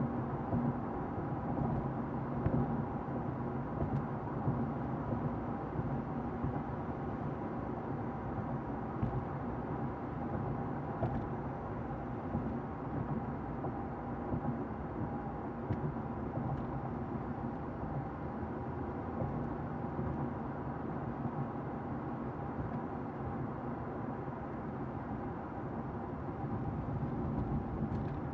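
Interior of a car while driving: a steady low rumble of engine and road noise heard inside the cabin, with a few faint clicks.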